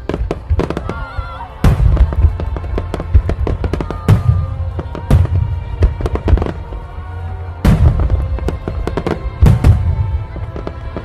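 Fireworks going off over music: loud bangs about once a second with quick crackling between them, on top of a steady musical backing with a heavy bass.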